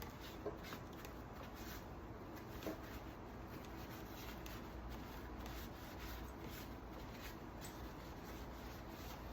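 Faint rubbing and scrubbing as the chainsaw bar is wiped clean of carburetor cleaner and loosened sap, with a light knock about half a second in and another near three seconds.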